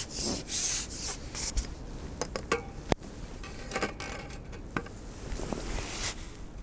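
Fishing pole rubbing and rasping against hands and clothing as it is lifted to play a hooked fish, with a scatter of sharp clicks and knocks from the pole and tackle. The rasping rubs come first, the clicks after.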